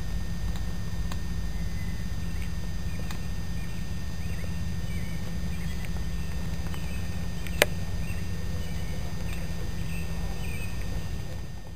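Steady low rumble on the camera microphone, with faint short high chirps scattered through and one sharp click about seven and a half seconds in.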